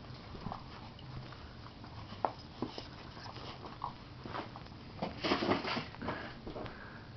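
Doberman puppies play-fighting: scattered scuffles and short dog sounds, with the loudest flurry about five seconds in.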